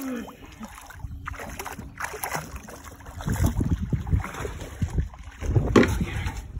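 Water splashing as a hooked jack thrashes at the surface beside the boat. About three seconds in, loud irregular rumbling of wind and handling noise on the phone's microphone takes over.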